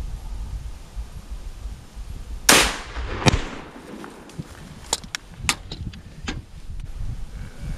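A single hunting-rifle shot, a sharp crack that rings and fades away over about half a second. Less than a second later comes another sharp crack, then several lighter sharp clicks and knocks, all over a low steady rumble.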